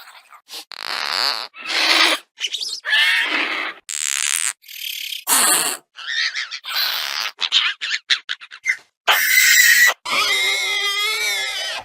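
Compsognathus creature sound effects: a rapid string of short, high chirps, squeals and hisses with brief silences between them, then a longer wavering call near the end.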